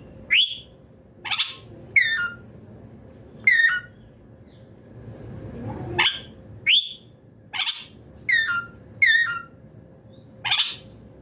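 Rose-ringed (Indian ringneck) parakeet giving about ten short, shrill screeching calls, each sweeping up and then dropping sharply, some in quick pairs, with a pause in the middle.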